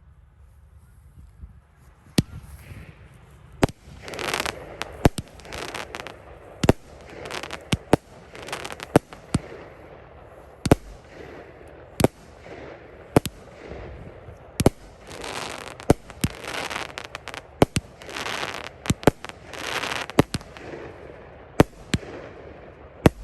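Fireworks going off in a rapid string: sharp bangs about once a second, starting about two seconds in, with bursts of crackling between them.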